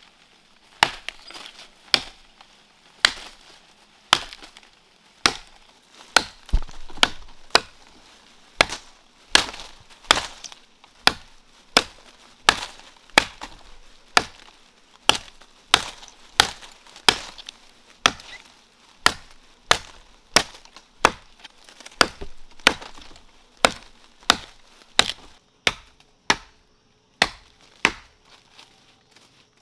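Blade chopping into a standing tree trunk by hand: a steady series of sharp wooden strikes, about one and a half a second, until just before the end.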